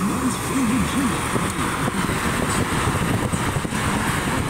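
Steady road and tyre noise heard inside a car cabin at highway speed, with a low voice-like sound rising and falling beneath it.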